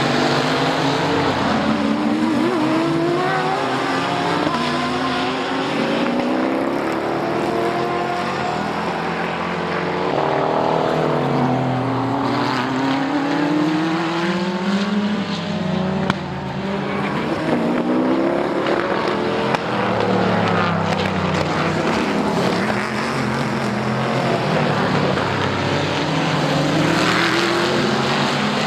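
Several sports-car race engines running at speed, passing in quick succession. Their overlapping notes rise and fall in pitch as the cars accelerate, shift and go by.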